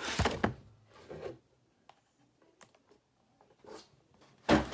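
Cardboard box and plastic packaging of a toy set being handled: a rustle and scrape at the start, then a single thump near the end.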